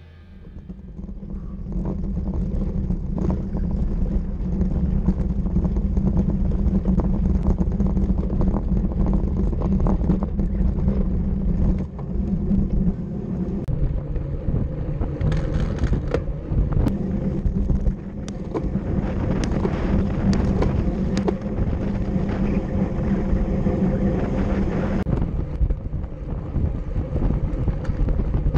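Wind buffeting a bicycle-mounted camera's microphone, over a steady road rumble, with frequent short rattles and knocks from the bike as it rolls over cobblestones and then asphalt.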